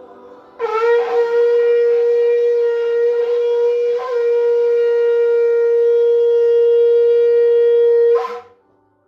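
Shofar blown in one long, loud held note of about seven and a half seconds, scooping up into pitch at the start and flicking sharply upward as it breaks off.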